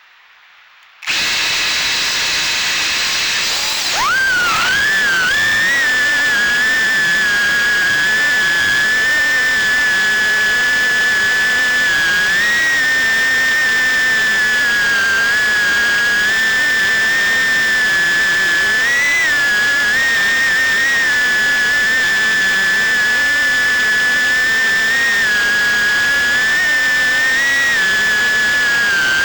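FPV quadcopter's brushless motors and propellers starting up with a hiss, then spooling up at about four seconds into a steady high whine. The whine holds one pitch, with brief small rises in pitch as the throttle changes.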